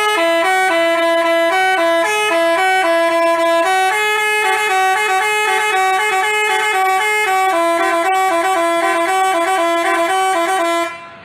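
Bus telolet horn of the basuri type playing a tune: two steady tones moving together from note to note several times a second, cutting off abruptly near the end.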